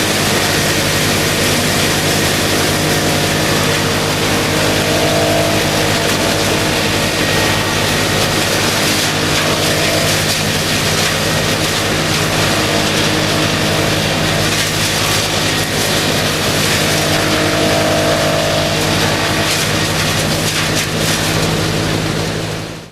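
Wood chipper running steadily: a constant engine drone under loud rushing, grinding noise, with a higher whine that swells up and fades a few times. It cuts off abruptly at the end.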